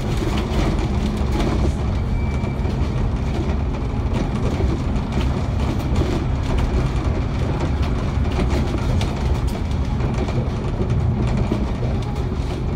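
Alexander Dennis Enviro500 MMC double-decker bus heard from inside the cabin while cruising at speed: a steady engine drone and road rumble, with frequent rattles and clicks from the bodywork.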